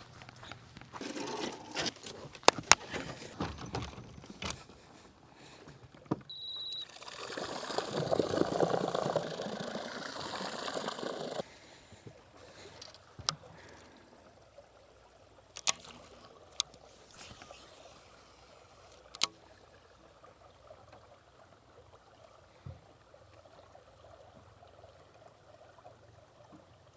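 Water trickling and sloshing around a small boat, with scattered sharp clicks and knocks. A short high beep sounds about six seconds in, followed by a louder rush of water that stops abruptly a few seconds later.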